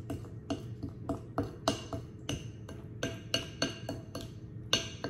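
A spoon clinking against a bowl as fermented tofu dipping sauce is stirred and mashed, with about three ringing taps a second; the loudest tap comes near the end.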